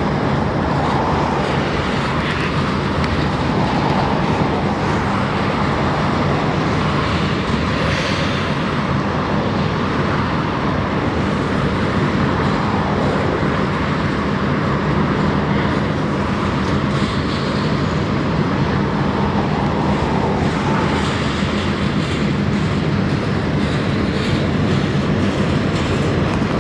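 Railcars of a passing train rolling steadily along the track.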